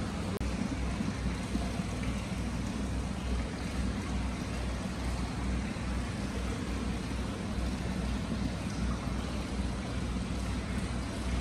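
Free-flowing hot-spring water welling up and spilling from a stone inlet basin into an indoor bath, a steady rush of water with a low rumble under it.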